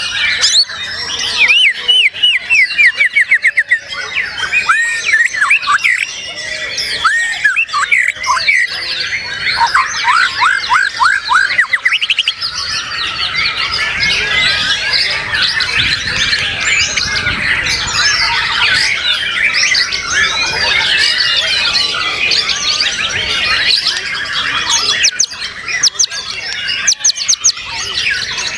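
White-rumped shamas (murai batu) singing loud, varied songs. Fast runs of repeated rising whistles fill the first dozen seconds, then several birds' songs overlap in a dense tangle.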